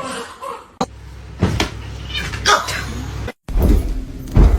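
A cat making short cries over a low rumble, broken by abrupt cuts between clips.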